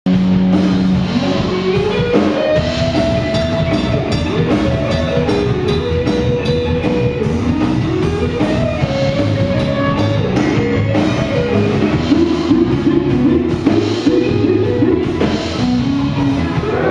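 A live rock band playing: electric guitars, bass guitar and a drum kit keeping a steady, busy beat, with a sliding melodic line over it.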